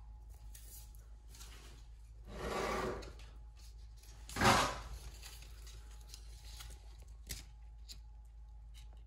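Two brief rustling, scraping handling noises, the second shorter and louder, with a faint click a few seconds later.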